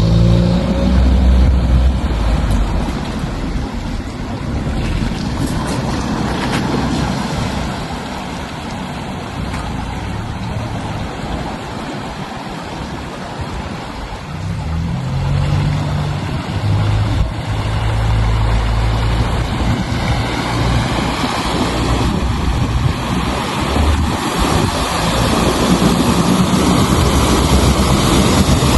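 All-terrain vehicle's engine running under load while it moves through water, with water rushing and splashing around it. The engine pitch shifts up and down as it goes.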